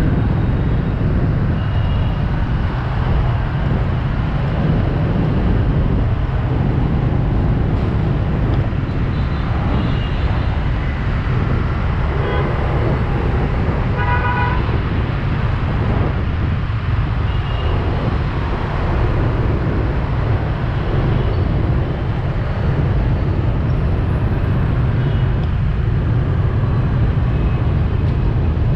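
Dense motorbike and scooter traffic: a steady low rumble of engines and tyres, broken by short horn toots, the clearest about halfway through.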